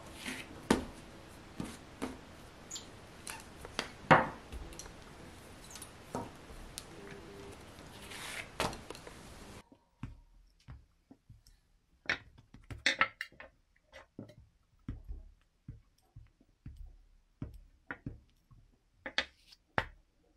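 Bread dough being pressed flat by hand and rolled out with a small rolling pin on a silicone baking mat: irregular soft taps and thuds. A faint steady hiss underneath cuts off about halfway through.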